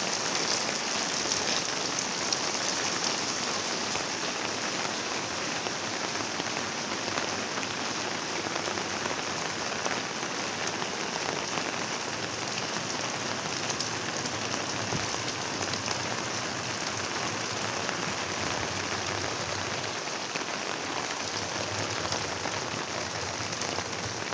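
Steady rain falling, an even wash of sound with many small drop ticks throughout.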